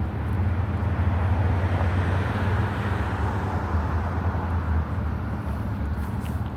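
A vehicle passing by, its tyre and road noise swelling and then fading over a few seconds, over a steady low rumble.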